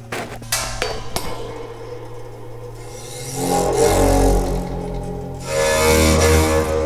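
Handmade metal harp, with its steel frame and plates struck and rubbed so that the metal rings: several quick knocks in the first second or so, each leaving ringing tones, then two louder swells of deep, resonant ringing with a noisy rasp on top, about halfway through and near the end.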